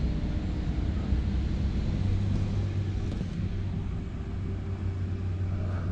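Diesel engine of a Liebherr LB30 drilling rig running steadily, a low even drone.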